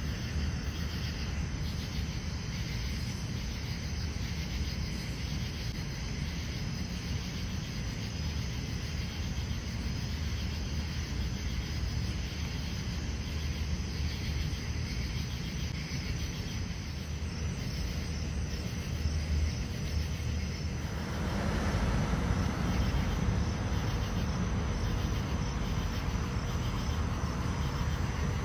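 Steady outdoor background noise with a low rumble and no distinct events. It grows louder and fuller about 21 seconds in.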